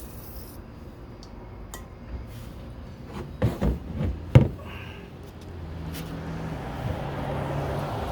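A few light knocks and clicks from handling a greasy metal door-mechanism part, then steady rubbing as a rag wipes caked lithium grease off it, growing louder toward the end.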